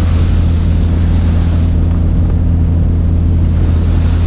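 Fishing boat's engine running with a steady low drone, over an even hiss of wind and water.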